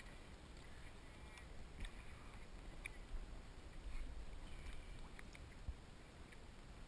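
Faint water lapping and sloshing at the waterline around a half-submerged camera, with a low rumble and scattered small ticks.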